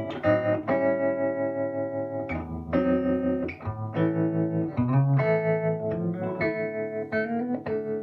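Electric guitar played through an early-1960s Davoli D531T tube amp: a run of chords and notes, changing every second or so. The volume ripples with the amp's freshly rebuilt tremolo circuit.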